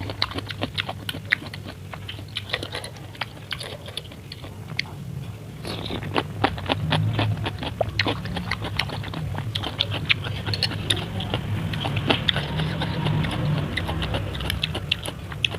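A person chewing and biting food close to the microphone: seblak with meatballs and raw jengkol. It comes as a dense run of wet mouth clicks and small crunches, busier and louder from about six seconds in.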